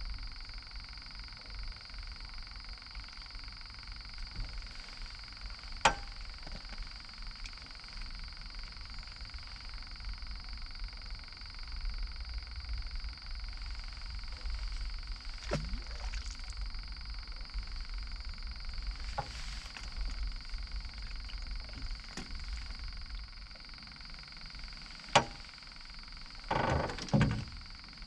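Frogs calling in a steady chorus under a low rumble, broken by a few sharp clicks and a short clatter near the end.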